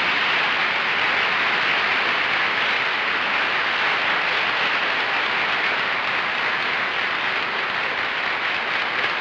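Studio audience applauding loudly and steadily, a dense even clatter of clapping.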